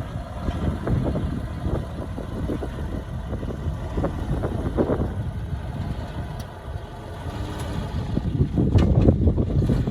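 Diesel engine of heavy earthmoving equipment running, with scattered short knocks. It dips in level about two-thirds through, then grows louder near the end.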